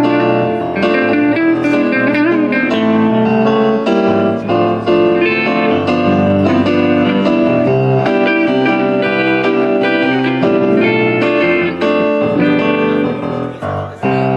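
Electric guitar and a Yamaha S80 electronic keyboard played live together.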